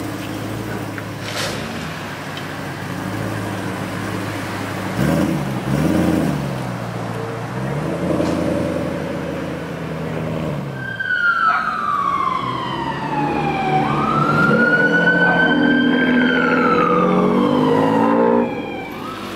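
Car engines idling and revving as cars pull away, with the revs rising and falling twice about five seconds in. About eleven seconds in an emergency vehicle's siren wails, sweeping down, rising again and holding before it falls and cuts off near the end.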